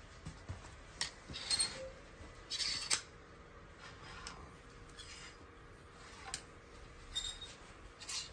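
Clothes hangers scraping and clicking along a metal clothing rail as garments are pushed aside one by one, with fabric rustling; short scrapes and clicks come every second or two.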